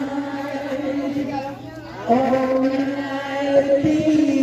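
Voices singing a slow Christmas song in long-held notes. One note is held, breaks off briefly about a second and a half in, and a new held note starts about two seconds in.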